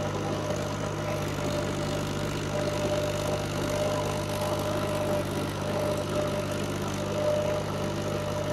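Massey Ferguson tractor's diesel engine running steadily as the tractor drives across a ploughed field.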